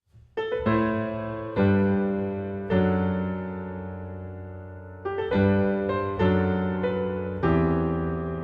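Solo piano instrumental: slow, gentle chords struck one after another, each left to ring and fade before the next.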